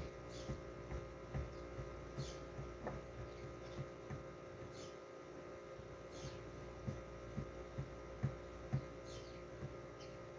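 Faint, steady electrical hum made of several steady tones, with soft light ticks and taps scattered through it.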